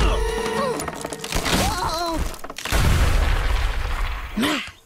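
Cartoon crash sound effects: a heavy thud at the start, a short wavering cry about one and a half seconds in, then a loud rumbling crash about three seconds in as a tree comes down.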